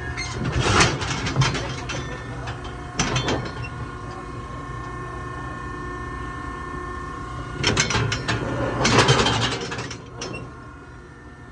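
Steel bucking chute rattling and clanging as the bull inside shifts against the bars. The knocks come in quick clusters: just after the start, around three seconds in, and again from about eight to ten seconds in.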